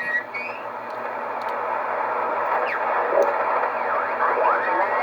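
Icom IC-735 shortwave receiver's audio: steady band hiss and static, with faint whistles that glide up and down in pitch.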